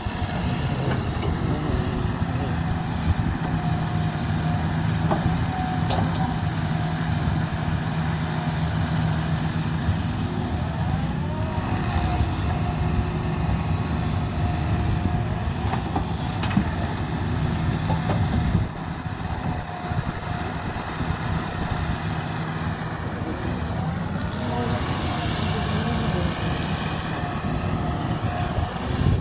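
Kobelco SK220 hydraulic excavator's diesel engine running steadily under load as it digs and swings, with occasional knocks of rock and soil from the bucket. Twice the pitch of the machine rises and falls as the hydraulics take load.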